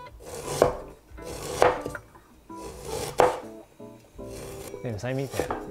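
Chinese cleaver slicing fresh ginger root on a wooden cutting board: a few separate knocks of the blade through the ginger onto the board, spaced about a second or more apart.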